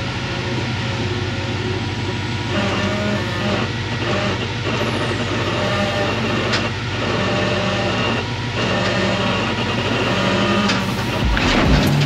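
Rock-crawling buggy engine running steadily with a low rumble, its pitch shifting every second or two as the throttle changes.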